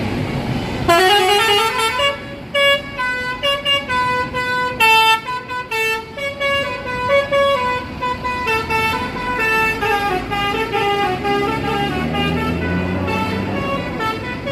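A bus's basuri musical air horn (telolet) plays a tune of short, stepping notes, starting about a second in. Under it a bus engine runs, and it revs up, rising in pitch, in the last few seconds.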